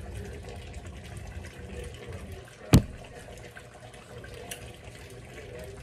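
Pot of curry chicken simmering on the stove, a steady low bubbling, with one sharp knock a little under three seconds in.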